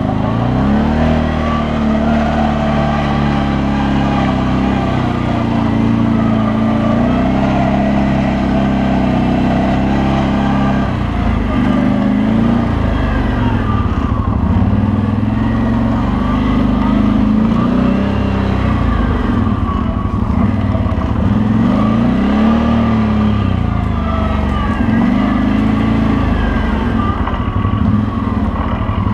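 CFMOTO CForce 800 ATV's V-twin engine running under way off-road, its revs rising and falling over and over as the throttle is opened and eased off.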